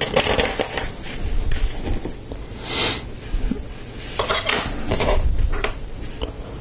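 Hard plastic Lego Technic pieces clicking and rattling as they are handled and fitted together, in several short clusters of clatter.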